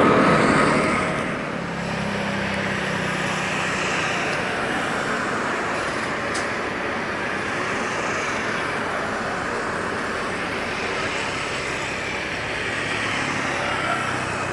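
Airliner jet engines at takeoff power: a Boeing 777's climb-out fading in the first second or so, then the steady noise of an Airbus A330-343's Rolls-Royce Trent 700 engines at full thrust on the takeoff roll.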